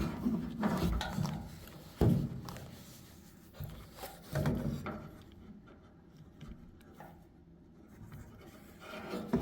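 Handling noise inside a dryer cabinet: a few dull knocks with rubbing and scraping between them, loudest at the start and about two seconds in, then quieter.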